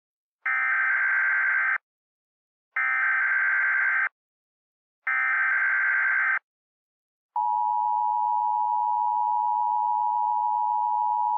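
Emergency Alert System SAME header: three equal bursts of warbling data tones, each a little over a second long with about a second between them, then the EAS attention signal, a steady two-note tone, begins about seven seconds in and holds unchanged. This is the opening of an emergency alert broadcast.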